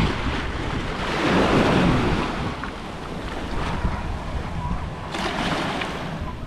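Small waves lapping against a rock and the sandy shoreline, swelling twice into a brighter wash, with wind buffeting the microphone.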